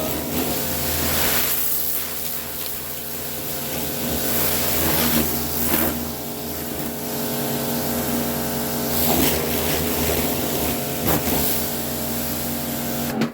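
Pressure washer running steadily, its jet of water spraying against the underside of a steel mower deck: a steady motor hum under a loud hiss of spray.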